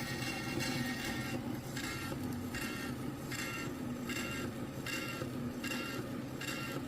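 Antique record player, at least 75 years old, running with a record on: a steady low hum under a rhythmic scratchy hiss that repeats about every 0.8 seconds, with no clear tune coming through. It is not how the record should sound: the player is not yet working properly.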